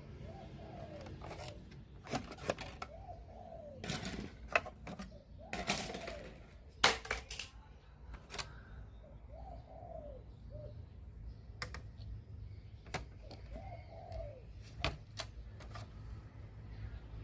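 Scattered sharp clicks and knocks, irregular and with the loudest about halfway through, like small hard parts and tools being handled, with a dove cooing softly now and then behind them.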